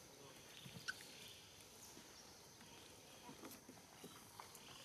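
Near silence: faint outdoor forest ambience with a few soft scattered clicks and brief chirps.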